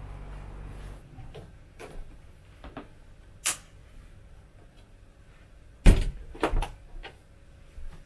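A wooden door being handled: a few sharp latch clicks, then a hard thump about six seconds in as it knocks shut, followed by a few smaller knocks and clicks.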